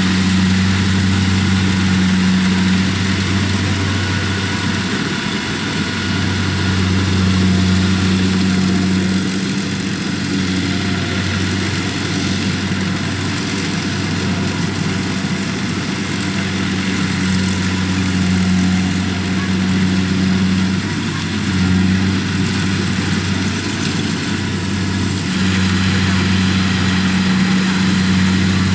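Kubota DC-70 combine harvester's engine running steadily, with a low hum that swells and eases slightly every few seconds.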